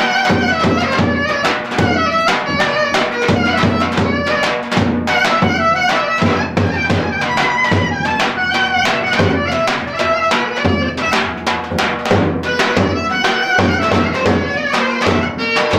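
Clarinet playing a lively traditional dance tune, with a drum beating a fast, steady rhythm along with it.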